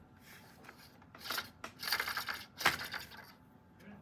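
Hard plastic parts of a FischerTechnik gear and axle clicking and rattling as they are handled: a 40-tooth gear is gripped and worked on its axle, which a spring clip now holds in place. It comes as a few short clatters in the middle of the stretch, the last the loudest.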